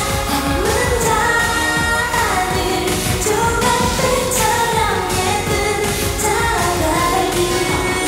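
Korean pop song with a woman's sung melody over a full band backing and a steady beat.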